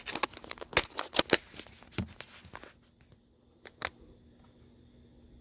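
Handling noise: a quick run of sharp clicks and rattles lasting about two and a half seconds, then two more clicks near four seconds in.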